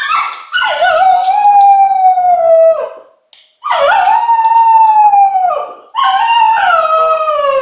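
English cocker spaniel howling: three long howls with short breaks between them, each dropping in pitch at its end. The howling of a dog left alone, a sign of its separation anxiety.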